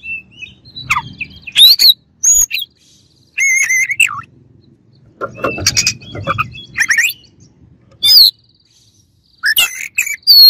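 Oriental magpie-robin singing loud, varied whistled phrases that sweep and warble in pitch, with short pauses between them.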